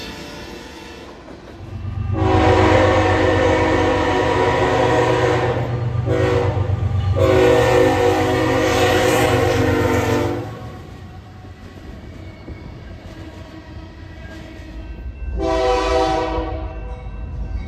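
BNSF diesel freight locomotive air horns sounding: two long blasts with a brief gap about two seconds in, over the low rumble of the locomotive, then a shorter blast near the end.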